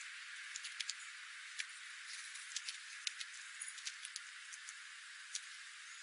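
Scrub jay pecking at seeds on gravel: irregular sharp clicks and ticks, over a steady hiss.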